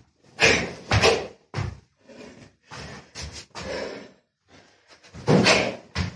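A series of short, loud hits, about eight in six seconds and unevenly spaced, the loudest pair near the end.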